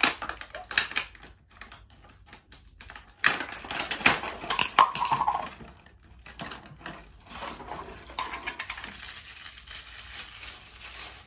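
Clear plastic toy packaging and small wrapped pieces being handled and pulled open by hand: irregular clicks, taps and crinkling rustles, busiest in the first half.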